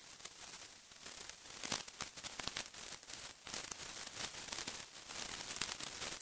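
Fabric camping gear rustling and crinkling as it is handled and stuffed into a bag, with scattered light clicks and knocks throughout.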